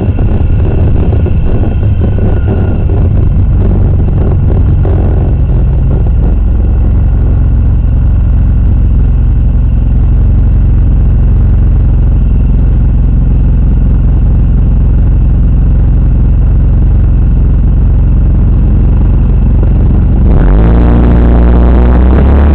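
Steady low rumble of road and traffic noise picked up by a drive recorder on a moving vehicle. About two seconds before the end, electronic music comes in over it.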